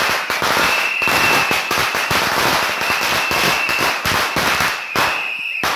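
A string of firecrackers going off in rapid, dense crackling pops for about five seconds, with a few last separate bangs near the end.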